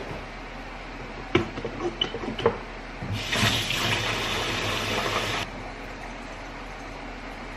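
Kitchen faucet running for about two seconds, then shut off suddenly, with a few light knocks and clicks just before it.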